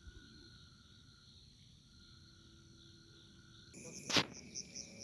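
Faint, steady insect chirring, like crickets. Near the end the sound changes abruptly and there is one loud, sudden knock.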